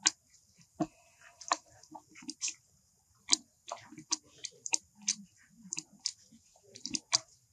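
Baby macaque chewing small food scraps: irregular sharp crunching clicks, several close together at times, over a steady high hiss.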